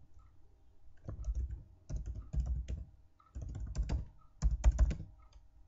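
Typing on a computer keyboard: keystrokes come in four short bursts with pauses between them.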